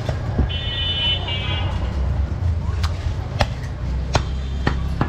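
Meat cleaver chopping goat meat on a wooden log chopping block: a knock near the start, then about five sharp strikes in the second half. A short high horn sounds twice in the first two seconds over a steady low traffic rumble.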